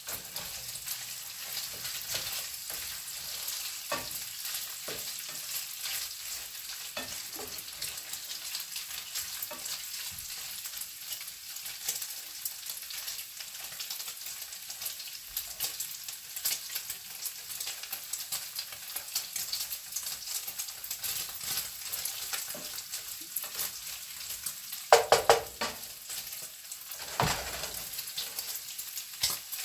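Bacon sizzling as it fries, a steady hiss full of fine crackles. A couple of louder knocks come near the end.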